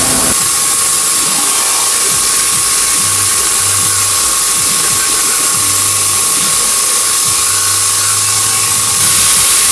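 Handheld plasma cutter cutting a round hole through the steel wall of a rectangular burn-chamber tube: a loud, steady hiss with a constant thin whine, and a low hum that comes and goes.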